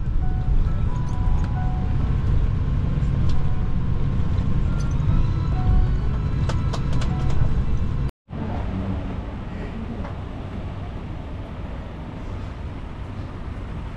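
Airliner cabin noise while taxiing after landing: a loud, steady low rumble of the engines and rolling gear, with a few faint clicks and rattles. About eight seconds in it cuts abruptly to the quieter, even ambience of an airport terminal.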